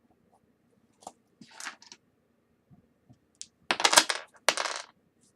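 A set of four six-sided dice clattering: a few light clicks and short rattles, then two louder rattles close together about four seconds in.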